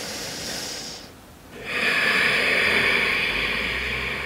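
A person breathing deeply during a held yoga pose: one breath that fades out about a second in, then a longer, louder breath lasting nearly three seconds.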